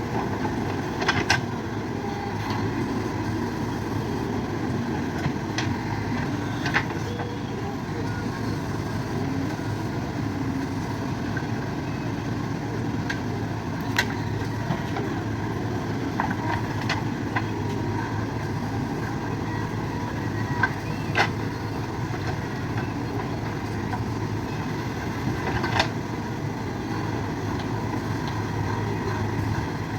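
JCB earthmover's engine running steadily under work, with scattered sharp knocks, the loudest near the middle and about three-quarters of the way through.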